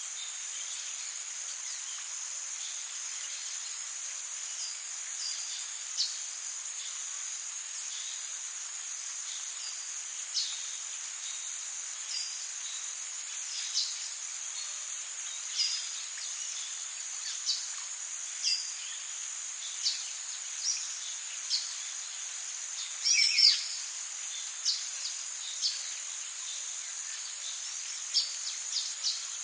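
Rainforest ambience: a steady, high-pitched drone of insects with scattered short bird chirps, and one louder bird call about three-quarters of the way through that slides down in pitch.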